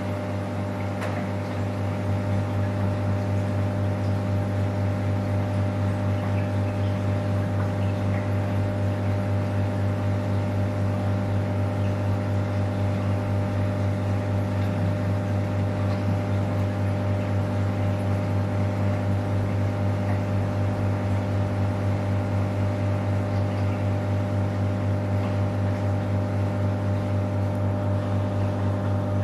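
Steady electrical hum of aquarium equipment such as a pump: one low note with many evenly spaced overtones, unchanging throughout and a little louder after about two seconds.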